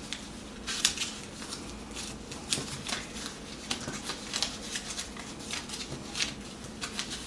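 Construction paper strips rustling and crinkling as they are handled and folded, an irregular scatter of short crackles.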